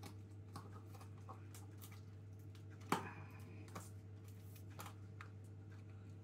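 Faint scattered clicks and crinkles of packaging being picked and peeled off a flameless wax-effect candle by hand, with one sharper click about three seconds in, over a steady low hum.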